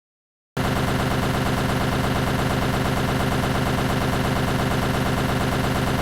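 A machine running steadily at constant speed with a fast, even pulsing, cutting in abruptly about half a second in.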